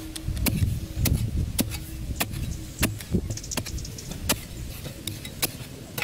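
Long iron digging bar with a spade-shaped tip jabbed repeatedly into dry sandy soil to loosen it for a hole: about nine sharp strikes with a low thud, at a steady rhythm of roughly one every two-thirds of a second.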